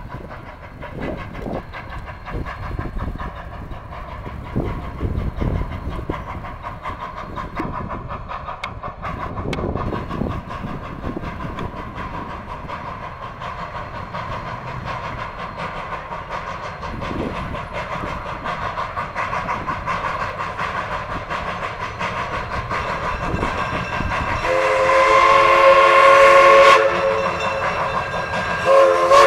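Viscose Company No. 6, a small 0-6-0 saddle-tank steam locomotive, working along the track with steady exhaust and running noise. About 25 s in, its steam whistle blows for about two seconds, with a short toot near the end.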